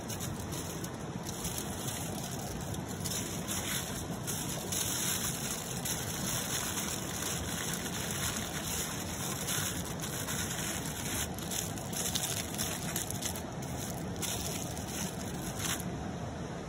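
Aluminium foil crinkling in a run of short crackles as it is folded and rolled around a fish, over the steady sound of a flowing river.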